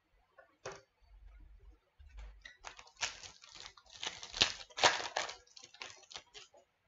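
Trading cards being flicked through by hand: a run of light clicks and rustles as the cards slide and snap against each other, busiest in the middle and stopping shortly before the end.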